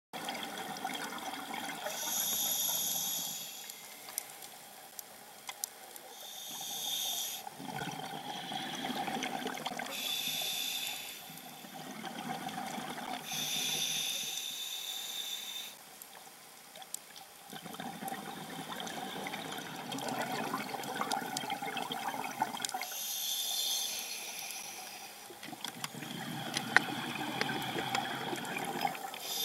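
Scuba diver breathing through a regulator, recorded in the water: short hissing inhalations alternate with longer rushes of exhaled bubbles, several breaths in a row, with a brief lull near the middle.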